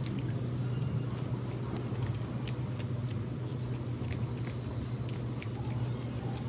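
Close-up eating sounds: wet mouth clicks and smacks while chewing a handful of rice and chicken chilli, over a steady low hum.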